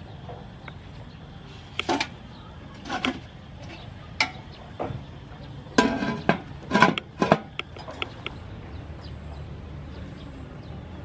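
Aluminium steamer pot clanking as its perforated tier and domed lid are handled and set in place: several separate metallic knocks and clatters, the loudest cluster about six to seven seconds in.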